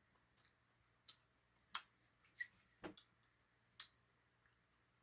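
Near silence broken by about six faint, short clicks scattered a second or so apart.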